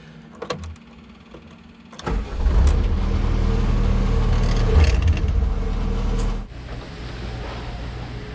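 Farm vehicle's diesel engine, heard from inside its cab, suddenly gets loud about two seconds in and runs steadily, then drops off abruptly about six and a half seconds in, leaving a quieter steady background noise.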